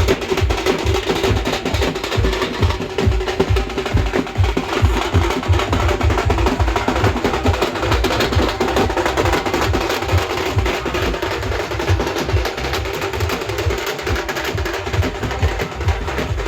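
Loud percussion-heavy music with fast, dense drum beats and heavy bass, played through a DJ sound system.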